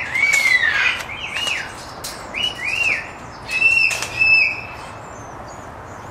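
Parrots giving a string of short chirps that rise and fall, about half a dozen in the first four seconds, with wing flaps as they fly in close.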